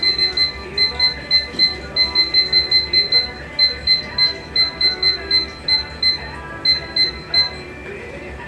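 Hair-cutting scissors snipping through hair: quick, ringing metallic snips about three a second, stopping shortly before the end.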